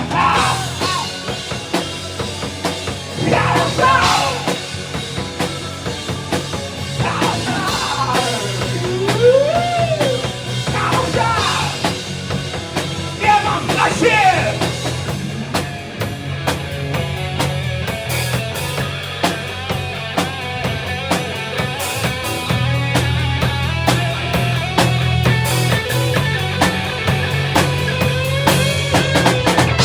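Rock band playing live, drum kit and bass under a few sliding high notes in the first half, no sung words.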